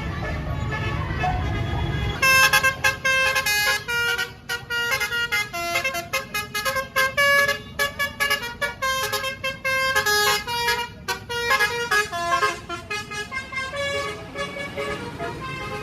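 A tour bus's basuri telolet horn, a multi-trumpet melody air horn, plays a fast tune of short, staccato notes. It starts about two seconds in over a low engine rumble and stops shortly before the end.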